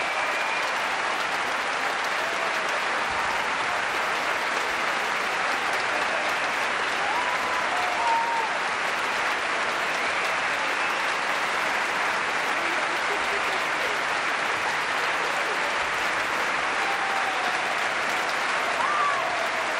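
Concert hall audience applauding steadily at the end of a performance.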